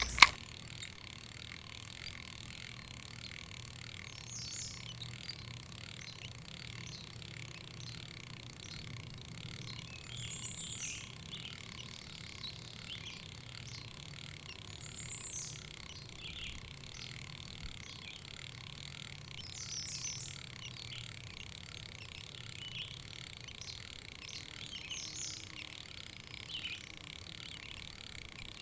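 Outdoor nature ambience: a short, high bird call repeats about every five seconds over a steady high hiss.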